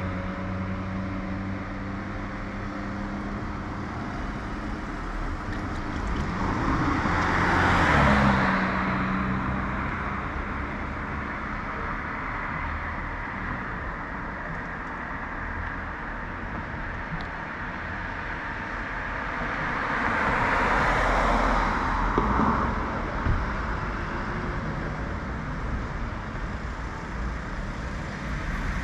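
Street traffic: two cars pass close by, one about eight seconds in and another about twenty-one seconds in, each swelling and fading over a steady background of road noise.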